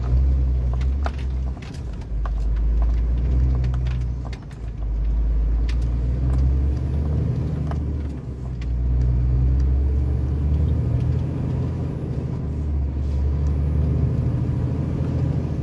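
Low engine drone and road noise heard inside the cab of a moving heavy lorry. The drone swells and eases several times, with a few light clicks or rattles.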